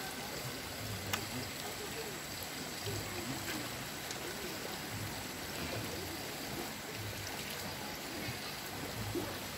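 Steady stream of spring water pouring from a pipe spout onto wet concrete, with a sharp click about a second in.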